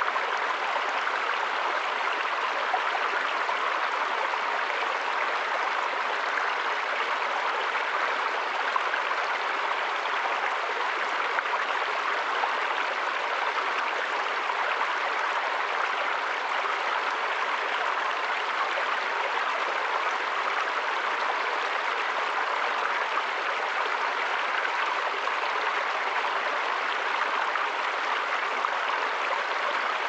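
A small rocky stream running and splashing over low ledges, a steady even rush of water.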